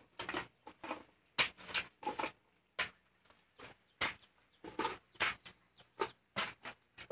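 Long-handled hoe chopping into and scraping dry, stony soil: a run of short, sharp strikes and scrapes, irregular, about two or three a second.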